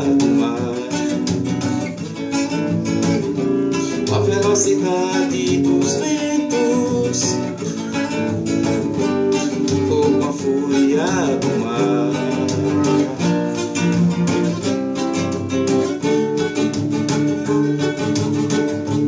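Acoustic guitar strumming chords: the instrumental close of a song.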